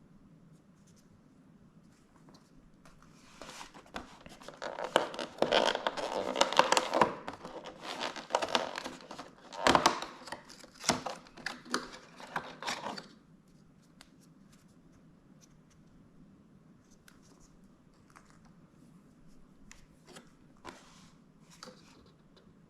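Packaging being opened by hand: a stretch of crackly tearing and rustling lasting several seconds, followed by a few faint taps and clicks.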